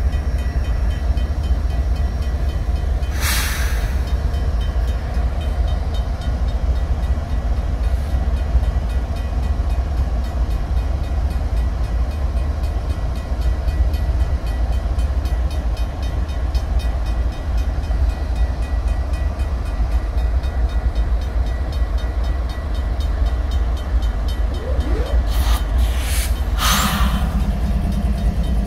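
Steady, deep rumble of a freight train's diesel locomotives running at the blocked crossing, with a crossing bell ringing faintly behind it. Short bursts of hiss come about three seconds in and twice near the end, and a lower engine tone joins in just before the end.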